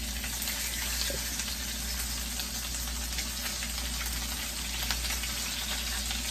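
Hamburger steaks sizzling in their own grease in a skillet: a steady frying hiss with faint scattered crackles.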